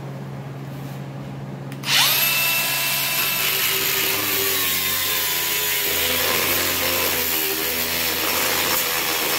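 Angle grinder with a cutoff wheel starting about two seconds in and cutting through steel bar stock: a loud, steady whine and grind whose pitch sags a little as the wheel bites into the steel. Before it starts, a low steady hum.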